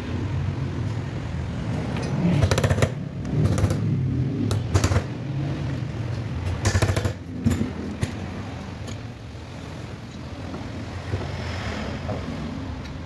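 Screwdriver and metal parts clicking and clattering against an alternator's aluminium housing as the screws around its rear bearing are worked loose. The clatter comes in several short bursts in the first half, over a steady low hum.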